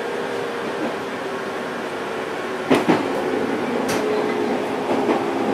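IGR 701 series electric train heard from the cab, a steady hum with a faint held tone, broken by three sharp clicks, two close together just under three seconds in and one about a second later.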